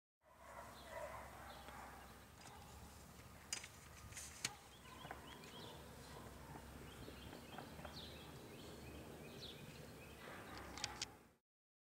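Faint outdoor ambience: a low steady rumble with scattered small bird chirps, and a few sharp clicks, two about halfway through the first half and a pair near the end.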